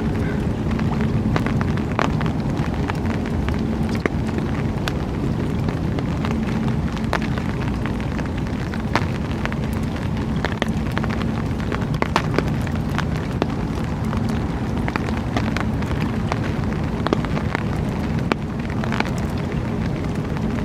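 Steady low rumbling noise with a faint constant hum, broken by scattered short crackles and clicks.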